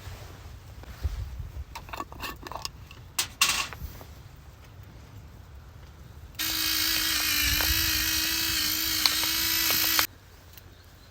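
A small electric motor whirring steadily at one pitch for about four seconds, then stopping abruptly, after a few knocks and clatters.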